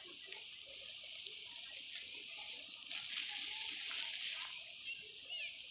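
Fountain jet splashing steadily, a continuous hiss of falling water that grows a little louder about halfway through, with faint voices of people in the background.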